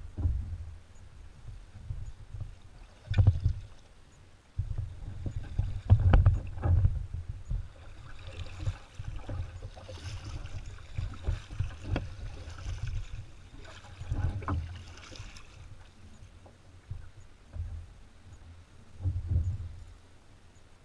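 Kayak paddling: the blades dip and splash through the water in uneven strokes, with a hiss of moving water in the middle stretch, and low bumps and several sharp knocks of the paddle and gear against the plastic hull.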